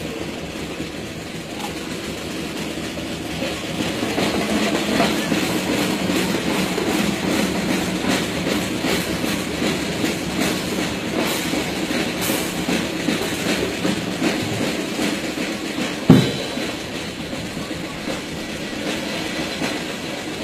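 Marching boots of a drill squad of airmen on the parade ground: a busy run of rhythmic steps and clicks, with one loud sharp thump about sixteen seconds in.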